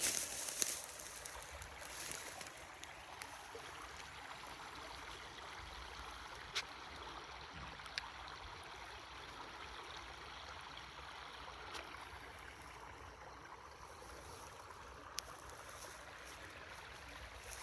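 Creek water running steadily, a soft even rush. Some rustling in the first couple of seconds and a few faint sharp clicks later on.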